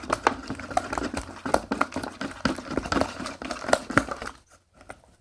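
Slime being stirred by hand in a container: the stirrer clicks and taps irregularly against the container's sides and bottom, several times a second, then stops about four seconds in.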